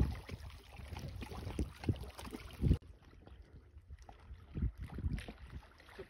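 River water lapping and splashing in irregular small strokes, with wind rumbling on the microphone. About three seconds in the sound cuts off abruptly to a quieter stretch of lapping.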